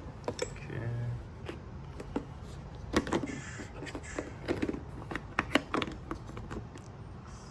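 Irregular clicks and knocks from a plastic storage case and its contents being handled and rummaged through, several sharp ones between about three and six seconds in.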